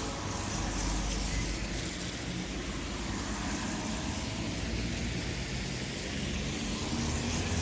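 Steady low rumble with a hiss over it, like road traffic.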